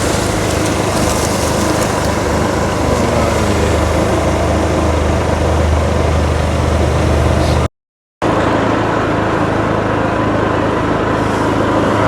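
An engine running steadily, a low even hum under loud wide noise, broken by a brief cut to silence about eight seconds in.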